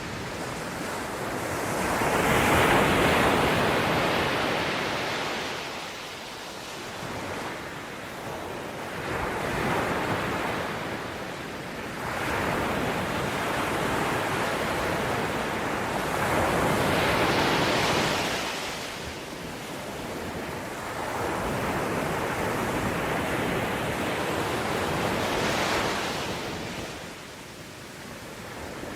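Ocean waves breaking on a shore, the surf swelling and fading in slow surges every several seconds, with some wind on the microphone.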